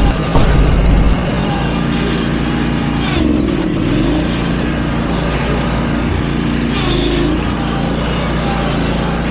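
Riding mower engine running steadily, its pitch briefly dipping and rising again a few seconds in, with heavy wind rumble on the microphone in the first second.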